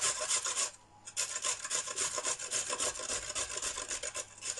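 A carrot being grated on a stainless-steel box grater: rapid, even strokes, with a brief pause about a second in.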